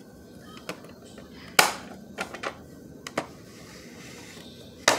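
Scattered clicks and taps of hard plastic toys being handled: a toy stable door and toy horse figures. The loudest tap comes about one and a half seconds in, and another sharp one near the end.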